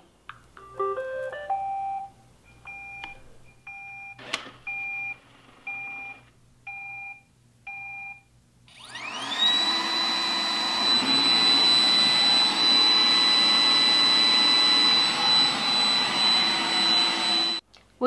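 iRobot Roomba 980 robot vacuum starting a cleaning run: a short rising chime of notes, then a string of short two-note beeps, then its vacuum motor spins up with a rising whine and runs loudly and steadily with a high whine, stopping suddenly near the end.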